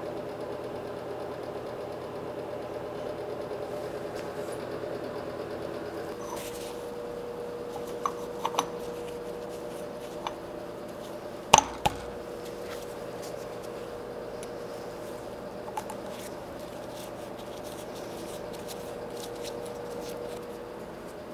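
Metal parts being handled and fitted on a drill press head: a few light clicks and taps, with one sharper metallic knock about halfway through, over a steady low hum.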